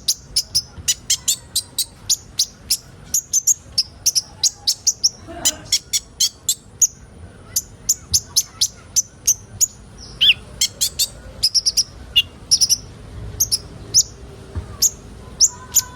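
Sunbird calling: a fast run of short, sharp, high chirps, about two to three a second.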